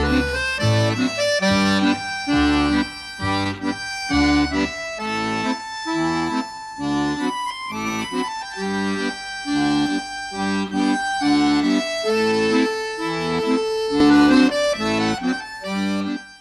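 Instrumental music led by an accordion: a melody over a steady alternation of bass notes and chords, ending right at the close.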